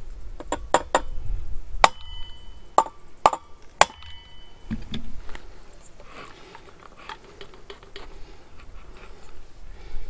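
Hammer striking a steel punch on the centre of a Stihl 028 AVS chainsaw's flywheel, about seven sharp metallic blows in the first four seconds, the loudest near two seconds in, some ringing. The blows send a shock through the crankshaft to loosen the flywheel without a puller. Fainter knocks and clicks follow in the second half.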